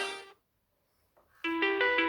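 Nokia X3-00 ringtones: one ringtone fades out right at the start, about a second of silence follows, then the next ringtone begins, a melody of short plucked, guitar-like notes.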